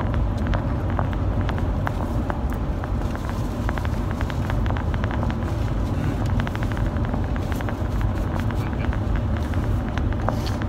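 Steady road and engine noise inside a moving car's cabin, with scattered small clicks throughout.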